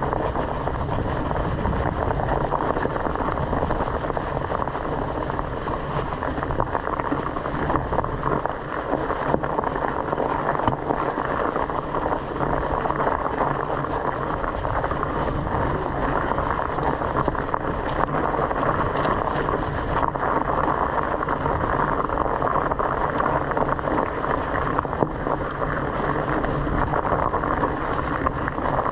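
Steady rumble of a bicycle rolling over a dirt trail, picked up through a handlebar-mounted camera, with small knocks from the bumps and wind on the microphone.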